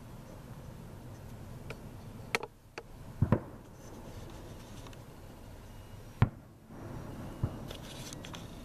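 Fireworks going off: several sharp bangs at irregular intervals, a double bang about three seconds in and the loudest about six seconds in, over a steady background hiss.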